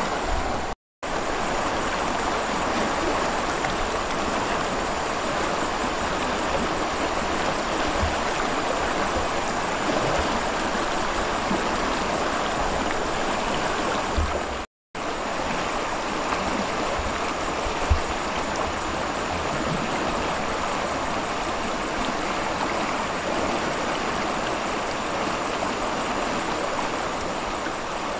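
Flowing river water running steadily, with a few soft knocks now and then; the sound drops out to silence twice for a split second, at about one and fifteen seconds in.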